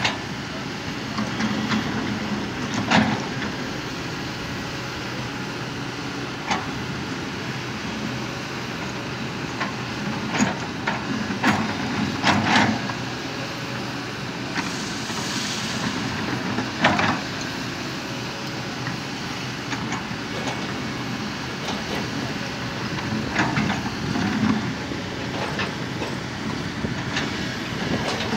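Kobelco SK200-10 hydraulic excavator working: its diesel engine runs steadily under load, with sharp clanks and knocks of stone every few seconds as the bucket spreads crushed rock. A brief hiss comes about halfway through.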